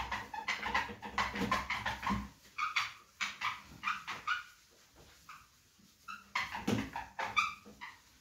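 Squeaks and rubbing strokes on a whiteboard as it is wiped clean, in short bursts a few tenths of a second long with gaps between them.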